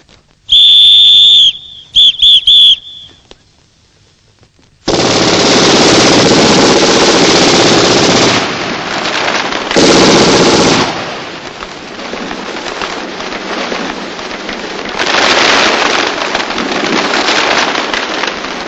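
A shrill whistle-like tone sounds once long, then in three short blasts. About five seconds in, heavy machine-gun fire breaks out and keeps going in long volleys, easing somewhat after about eleven seconds and swelling again near the end.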